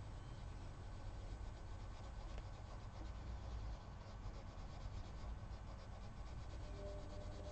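Faint scratching of a Prismacolor coloured pencil rubbing on paper in small, quick, repeated strokes to blend colour in. The strokes become more distinct after about four seconds, over a low steady hum.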